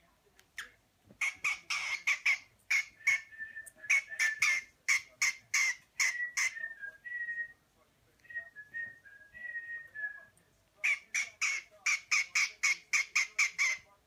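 Cockatiel chirping in quick runs of short, sharp calls. Through the middle these give way to short whistled notes, and fast chirping returns for the last few seconds.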